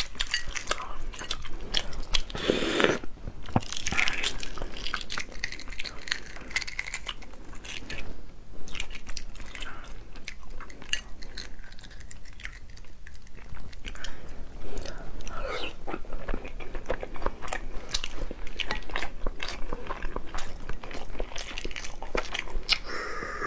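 Eggshell crackling as fingertips pick the shell off a boiled huozhuzi (partly developed fertilized egg): many small crisp snaps and clicks close to the microphone, with chewing at times.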